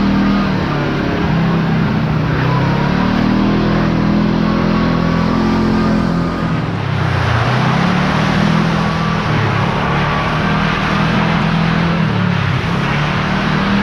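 Kawasaki KRX4 1000 side-by-side's parallel-twin engine running under way, its pitch dropping and climbing back with the throttle about a second in, about seven seconds in and again near the end, over a steady hiss.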